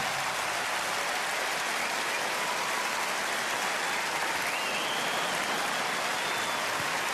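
Audience applauding, a steady wash of clapping that greets the magic trick's finish.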